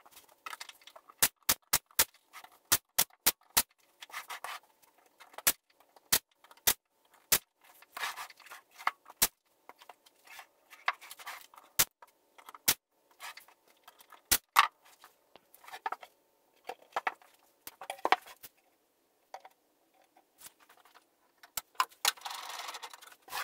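Brad nailer firing into a thin plywood panel on a wooden cabinet box: a quick run of about eight shots, then single shots spaced a second or so apart, with hands rubbing and sliding on the wood in between. Near the end a board slides across a table with a longer scrape.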